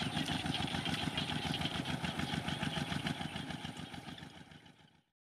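A small engine running steadily with a fast, even pulsing, fading away near the end.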